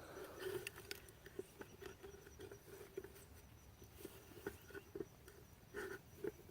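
Soft, irregular rustling and small clicks of garden soil being dug through and potatoes being handled.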